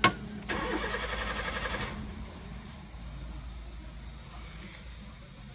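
A sharp click, then a 2014 Honda City's engine being cranked by the starter for about a second and a half and stopping without catching: the crank-but-no-start fault.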